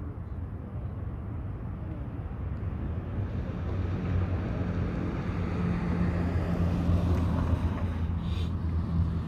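An engine running close by: a low, steady hum that grows louder from about three seconds in.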